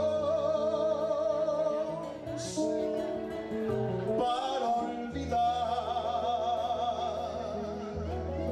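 Male vocalist singing through a microphone over instrumental accompaniment with a steady bass line, holding two long notes with wide vibrato: one at the start and another from a little past halfway.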